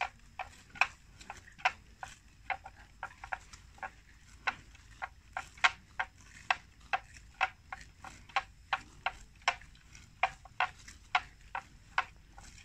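Water buffalo tearing and cropping grass as they graze: a run of crisp snapping bites at an irregular pace, roughly two to three a second.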